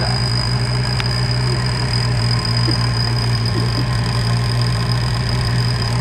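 Off-road buggy engine running steadily during a winch pull up a bank, with a steady high-pitched whine over it.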